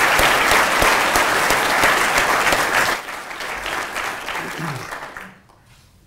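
Audience applauding: a full round of clapping for about three seconds, then it thins and dies away by about five seconds in.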